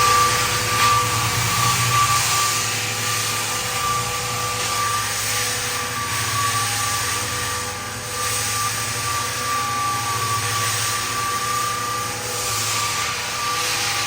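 Drum floor sander running and sanding a wooden floor: a steady motor hum and whine with a hiss of abrasive on wood, dipping briefly a couple of times.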